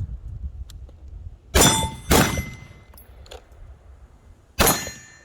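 Three gunshots, the first two about half a second apart and the third about two and a half seconds later, each followed by a metallic ring that fades out.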